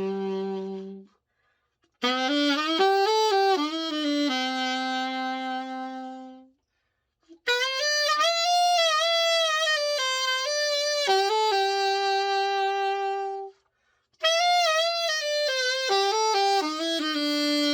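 Selmer Mark VI alto saxophone, freshly overhauled, played solo in three melodic phrases with short breaths between them and vibrato on some held notes: a play test of the repaired horn.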